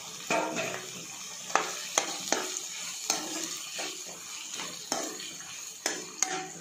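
Chopped tomatoes and onions sizzling in sesame oil in a frying pan, stirred with a steel spoon that clinks and scrapes against the pan about eight times.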